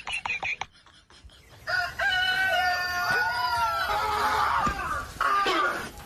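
Rooster crowing: one long drawn-out call starting a little under two seconds in, trailing off into a rougher, noisier stretch.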